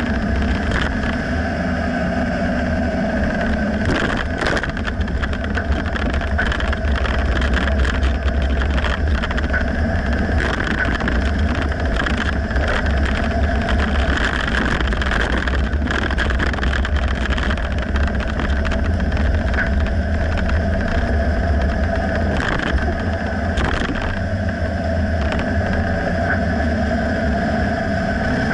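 2009 Dodge Ram pickup driving with a steady low rumble of road and drivetrain noise, broken by a few short sharp knocks. The knocks are the clunk the owner cannot pinpoint and suspects is in the rear differential.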